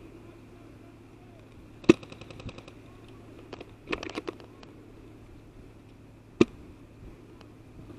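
Airsoft gunfire: two sharp single shots about four and a half seconds apart, the loudest sounds, with short bursts of rapid, evenly spaced automatic fire around them.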